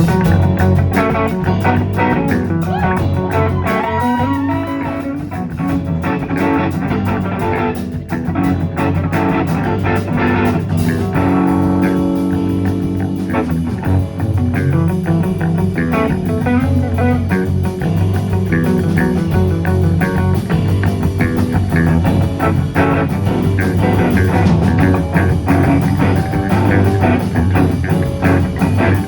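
Rock band playing an instrumental passage with no vocals: guitar-led, over bass guitar and a steady beat, with a few bent, gliding guitar notes about four to five seconds in.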